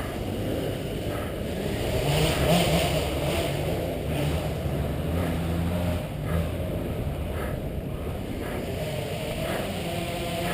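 Motocross bike engine running at low to moderate revs, opening up about two seconds in and then easing off.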